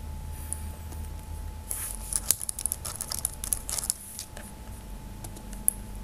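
Typing on a computer keyboard: a quick run of key clicks lasting about two seconds, starting a couple of seconds in, then a few scattered single clicks.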